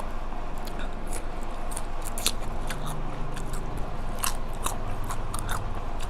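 Close-miked eating sounds of someone chewing spicy red ant egg salad: irregular sharp clicks and smacks of the mouth.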